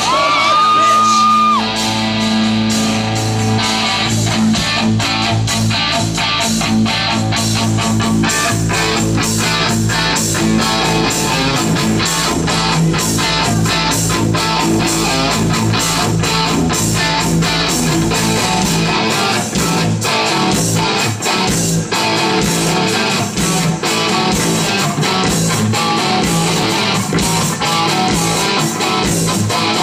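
Live rock band playing: electric guitars over a drum kit, with steady drum hits throughout. A high note glides up and holds for about a second at the start.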